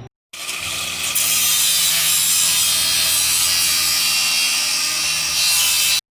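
A large engine-driven farm machine running close by: a steady hum under a loud, even hiss. It starts abruptly just after a short gap and stops sharply at the end.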